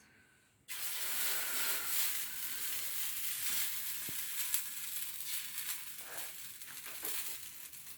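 Hot dosa griddle (tawa) sizzling, starting suddenly under a second in and slowly easing, with a few faint light knocks of a utensil.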